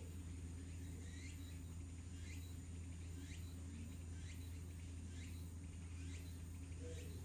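A short, high chirp falling in pitch, repeated about once a second, over a steady low hum.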